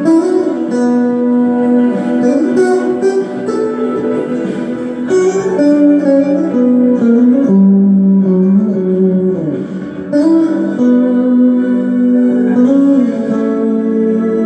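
Instrumental music: a guitar plays the melody in held notes, with a few sliding pitch bends about eight to ten seconds in, over a steady accompaniment.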